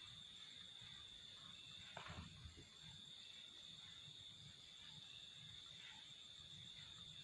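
Near silence with a faint, steady high-pitched insect drone, and a soft brief noise about two seconds in.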